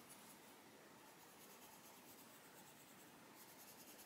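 Faint, steady scratching of an Arteza Expert coloured pencil shading on paper.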